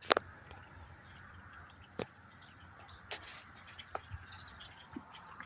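A large flock of birds calling together in the trees, a steady chattering din with sharper single calls standing out every second or so; a brief sharp sound at the very start is the loudest thing.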